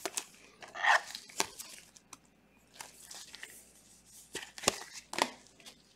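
Trading cards and clear plastic card sleeves being handled: scattered crinkling and sharp clicks, louder about a second in and again near the end.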